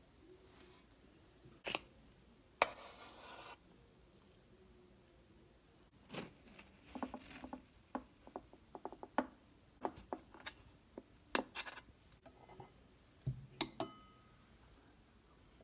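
A kitchen knife working on a whipped-cream-frosted loaf cake: a short scrape about three seconds in, then a run of small irregular crunches and taps as the blade cuts through the cake and meets the board. Near the end there is a low knock and a couple of sharp clicks.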